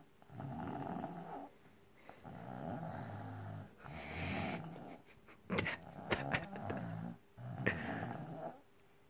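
A young child snoring heavily: a rasping snore on each breath, about five in a steady rhythm with short pauses between, with a run of sharp clicking snorts during one breath about two-thirds of the way through.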